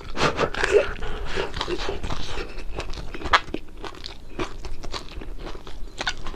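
Crispy fried fish crunching as it is bitten and chewed, in many irregular crunches, with one louder crunch about three seconds in.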